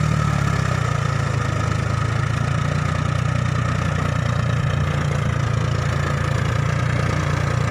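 Farmtrac 6050 tractor's diesel engine running steadily under load, pulling a rotavator through wet paddy soil.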